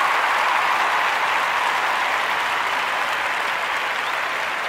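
Crowd applauding, a dense, steady clapping that slowly fades.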